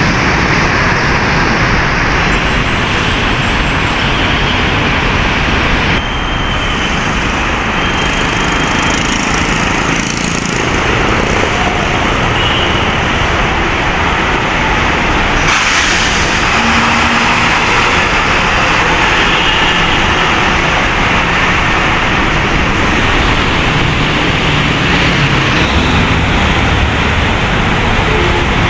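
Heavy city road traffic: trucks, cars and motorcycles passing close by with a steady mix of engine and tyre noise.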